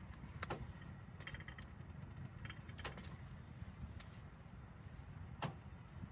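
Wood fire in a tent stove crackling: three sharp snaps about two and a half seconds apart among fainter crackles, over a steady low rumble.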